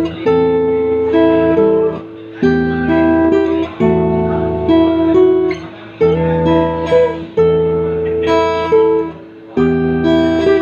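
Guitar music: an instrumental song intro played in phrases that restart every second or two over sustained low bass notes.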